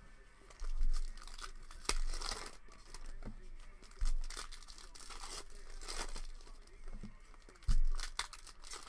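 Crinkling and tearing of a foil trading-card pack wrapper as it is opened by hand. Four dull thumps break in, the loudest sounds.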